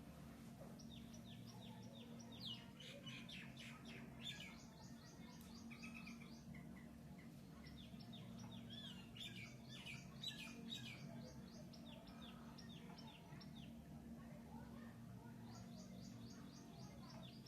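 Faint bird chirping: rapid series of short high notes in three spells, over a low steady hum.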